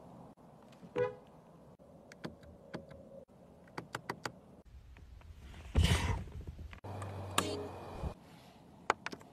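Small mechanical sounds of car cabin controls being handled: a short tone about a second in, a run of light clicks, then a heavier thump and a brief low hum near the end.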